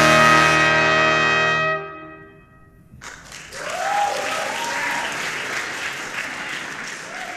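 A brass quintet with solo trombone holds its final chord, which stops about two seconds in and rings away briefly. About a second later the audience breaks into applause.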